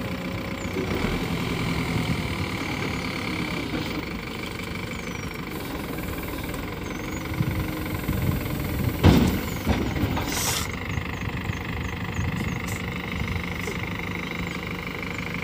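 The diesel engine of a CAT 424B backhoe loader running steadily under work, with a loud sudden clank about nine seconds in.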